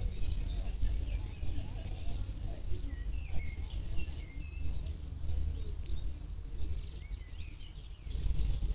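Small songbirds chirping and singing in many short, quick, rising and falling notes over a steady low rumble of outdoor background noise.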